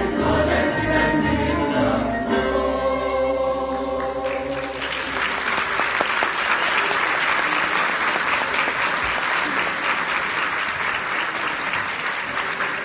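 A Turkish folk music choir with instruments ends a song on a held final chord, about two seconds in, sustained for a couple of seconds. The audience then breaks into applause that carries on steadily.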